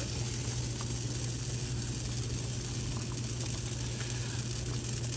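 Pot of bean soup simmering hard on the stove while a wooden spoon stirs it, a steady sizzling hiss over a low hum: the soup is beginning to stick to the bottom over too high a flame.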